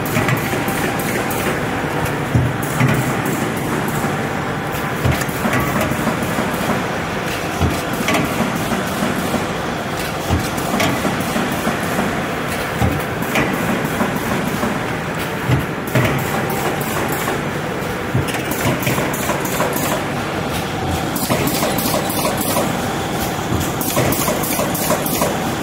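Automatic partition assembly machine running, a steady mechanical din with frequent short knocks and clacks as it assembles corrugated cardboard partitions.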